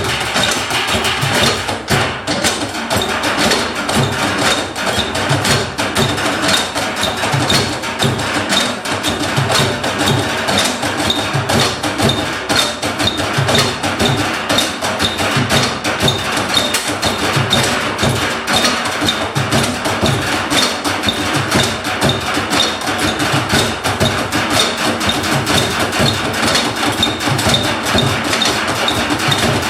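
Live percussion ensemble music: a dense, steady stream of knocks and taps over a low repeating beat.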